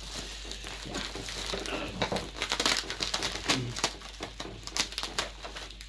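Bubble wrap crinkling and crackling as it is handled and the brown packing tape around it is cut with scissors. The crackles come thickest from about two seconds in.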